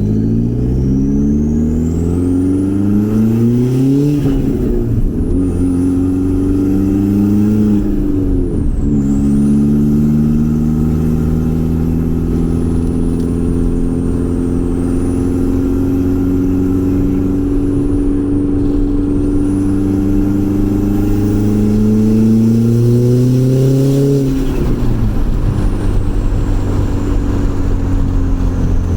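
B5 Audi A4's turbocharged four-cylinder, on its stock K03 turbo at maximum boost, accelerating hard through the gears. The revs climb, drop at two gear changes about 4 and 9 seconds in, rise slowly for a long stretch, then fall off near the end as the throttle lifts. A thin high whistle rises and falls with the revs.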